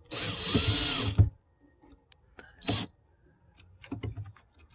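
Cordless drill driving a screw into an RV door lock: a run of about a second, then a short burst nearly two seconds later, followed by a few light clicks.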